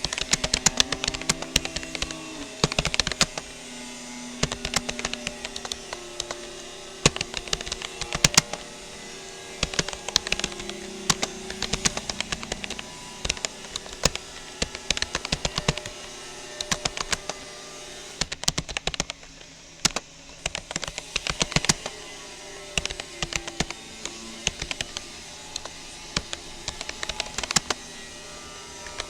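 Touch-typing on a Rapoo computer keyboard: rapid keystroke clicks in runs of a second or two, broken by short pauses.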